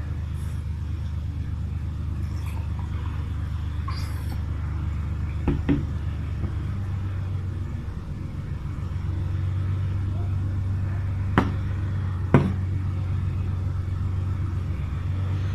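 Steady low motor rumble that steps up slightly in pitch and level about nine seconds in, with a few sharp clicks: two close together about five and a half seconds in, and two more near twelve seconds.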